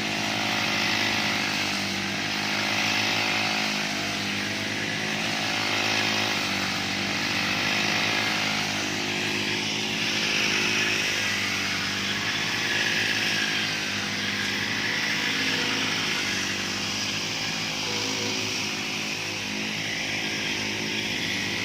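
Motorised grass trimmers (brush cutters) running steadily while cutting grass, the engine note swelling and easing every couple of seconds as the cutters sweep.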